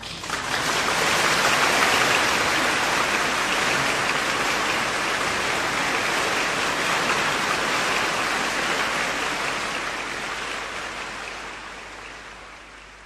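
Audience applauding, heard on a live concert recording, as soon as the orchestra's final chord ends. The applause is steady, then fades out over the last few seconds.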